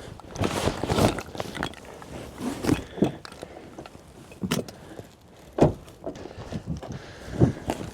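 Irregular footsteps and rustling of people moving about on foot, with a few sharper knocks about half a second, four and a half, five and a half and seven and a half seconds in.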